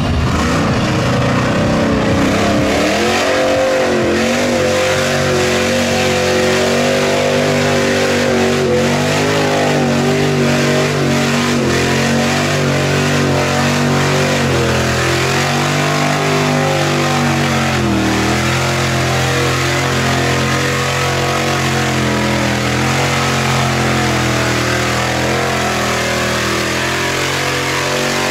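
Lifted Chevrolet Silverado pickup on oversized mud tires pushing through deep mud with its engine held at high revs. The pitch wavers and dips briefly now and then as the spinning tires bog and catch, over the splash of thrown mud.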